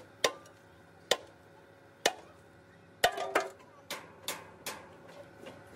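Hammer blows on metal: three sharp strikes about a second apart, then a quicker run of about six, each with a short ring.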